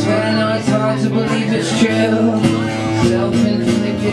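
Acoustic guitar strummed with a pick, playing a steady chord pattern of regular strokes.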